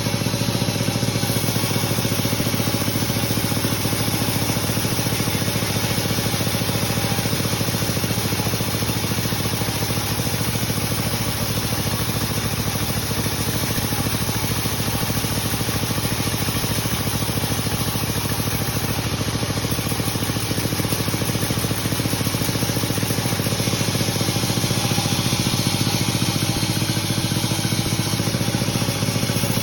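Sawmill machinery running steadily, a constant engine-like hum with a wide hiss over it that neither rises nor falls.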